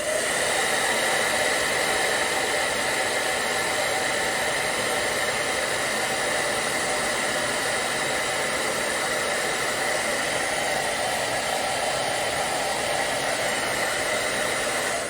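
Hairdryer running steadily, its fan and blown air a loud even rush with a steady whine on top, switched on at the start and off at the end.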